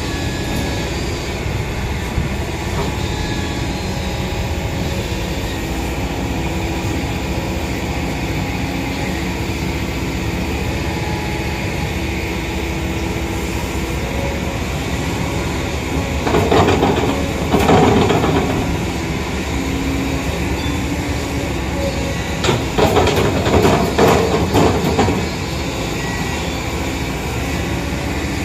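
Kobelco hydraulic crawler excavator's diesel engine running steadily while it digs. There are two louder spells of rattling and knocking, about halfway through and near the end, as the machine works its bucket through the soil.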